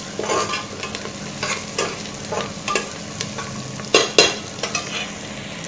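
Chopped onion frying in oil in a pressure cooker while a metal spatula stirs it, scraping and knocking against the pan in an irregular string of strokes over a steady sizzle, with two louder knocks about four seconds in. The onion is being sautéed toward golden brown.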